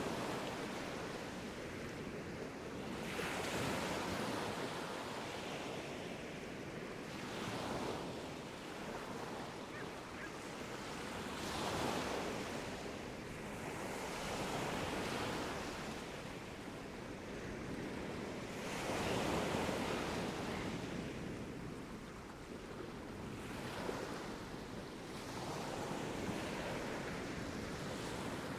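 Sea waves breaking and washing up a beach, in swells that rise and fall about every four seconds.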